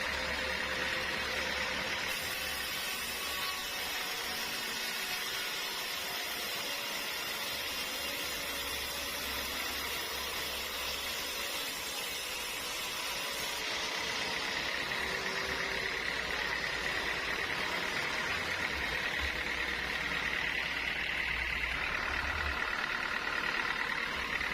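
Sawmill machinery running steadily: a constant engine-like drone with a steady high whine.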